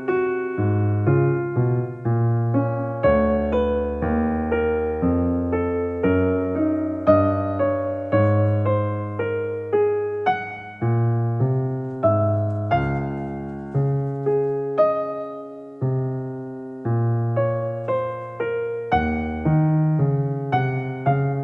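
Background piano music: a slow melody over low chords, each note struck and then fading away.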